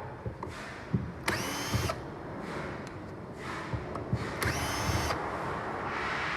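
Handheld electric screwdriver running in two short bursts about three seconds apart, each spinning up with a rising whine, among clicks and handling noise: screws being driven out to take apart a Fanuc power supply board.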